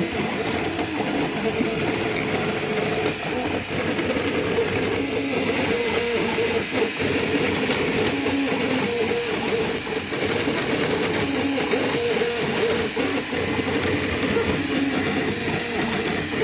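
Small desktop 3D printer running a print. Its stepper motors whine in short tones that jump in pitch as the print head moves, over a steady fan hiss.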